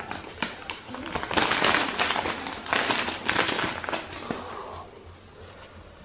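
A paper receipt being handled and unfolded, rustling and crinkling in several bursts that die away after about four seconds.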